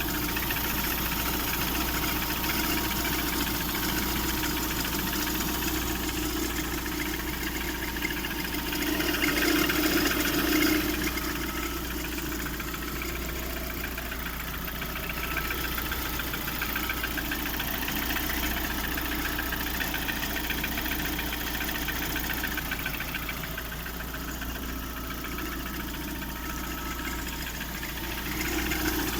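Lada Priora 16-valve 21126 engine idling with a fast, even knocking and rubbing noise. The owner calls it piston knock and thinks it sounds like something rubbing near the timing belt. The engine gets briefly louder about ten seconds in.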